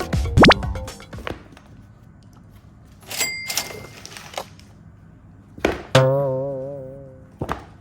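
A music phrase ends about a second in, followed by scattered clicks and knocks, a short high tone about three seconds in, and near the end a thump and then a wobbling pitched tone that fades away over about a second and a half.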